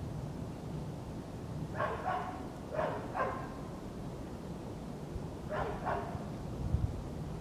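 Siberian husky puppy barking: three pairs of short, high yaps, about a second apart at first and then after a longer pause. A dull low thump comes near the end.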